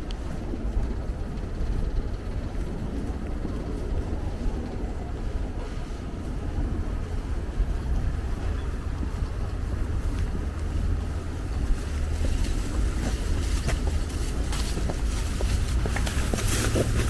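Steady low rumble of wind buffeting the microphone over outdoor street ambience. Scattered sharp ticks come in during the last few seconds.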